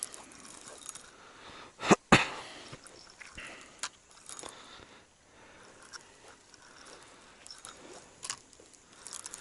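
Reeling in a hooked burbot on a spinning rod and reel: faint rustling and small clicks, broken about two seconds in by two loud sharp noises in quick succession.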